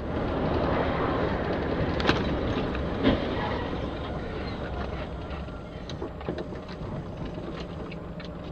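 Car interior road noise on a wet road, a steady hiss, with two sharp knocks about two and three seconds in as an SUV ahead crashes, and scattered small ticks later on, as of gravel or debris.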